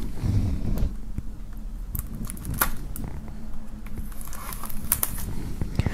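Knife tip cutting into the cellophane shrink-wrap on a plastic CD jewel case: scattered small clicks and crackles of plastic.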